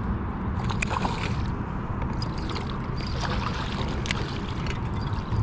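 Steady low rumble of a pedal kayak moving across the water while trolling, with scattered light clicks.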